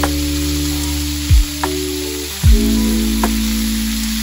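Beef kafta sizzling in hot oil in a cast-iron grill pan, with a couple of short clicks from metal tongs turning the meat. Background music with held notes and a few deep downward swoops plays over it.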